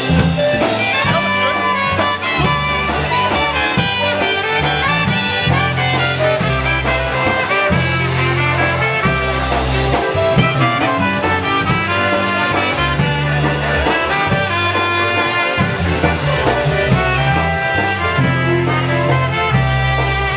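Live polka band playing an instrumental passage of a Polish polka, brass and saxophone carrying the tune over a steady, even beat.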